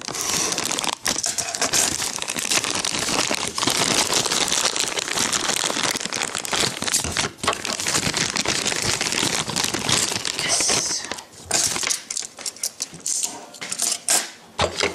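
Plastic packaging crinkling and crackling as it is handled and opened close to the microphone, with scattered clicks and taps in the last few seconds.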